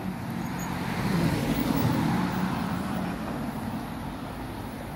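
A road vehicle driving past, its engine and tyre noise swelling to a peak about two seconds in and then fading away.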